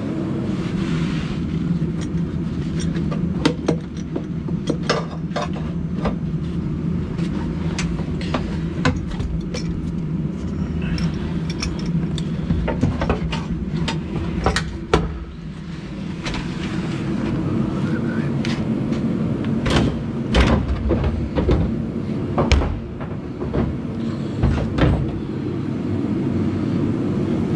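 Repeated clanks and knocks of an aluminium racing seat and its mounting bracket being shifted and fitted inside a stripped race car's metal cabin, over a steady low hum. The loudest knocks come in a cluster near the end.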